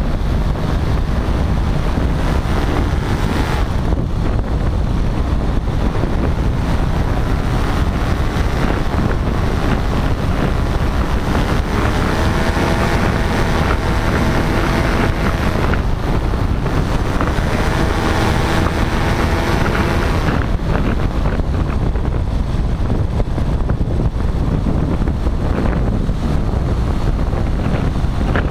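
Paramotor flight: wind buffeting the microphone with the paramotor's engine and propeller droning underneath. From about twelve to twenty seconds in, the engine drone comes through more clearly, its pitch wavering slightly up and down.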